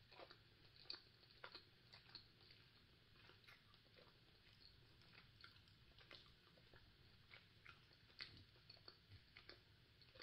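Faint chewing of a soft, chewy walnut mochi wrapped in edible rice paper: irregular small wet mouth clicks, several a second.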